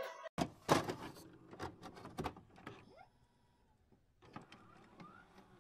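Glitch-style intro sound effects: a rapid run of clicks and short electronic whirs with a couple of rising sweeps, cutting to dead silence about three seconds in, then fainter clicks.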